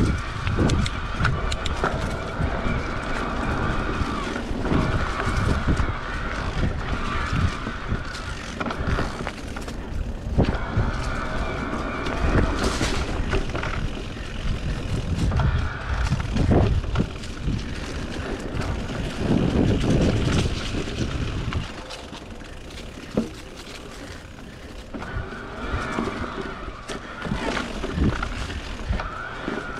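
Niner e-RIP 9 electric mountain bike being ridden along a dirt singletrack: tyres rolling and crunching on the trail, with the bike knocking and rattling over bumps and heavy rumble on the microphone. A steady mid-pitched hum comes and goes, and the riding gets quieter about two-thirds of the way through.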